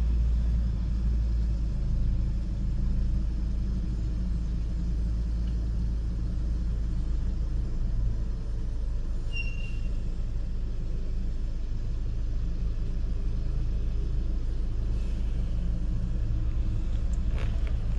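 Steady low rumble and hum inside an SUV's cabin with the engine running as the vehicle creeps along at walking pace.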